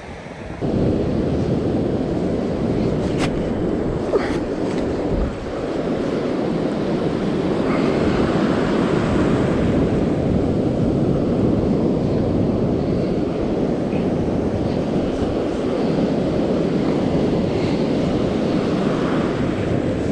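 Ocean surf breaking and washing up the beach, with wind rushing over the microphone.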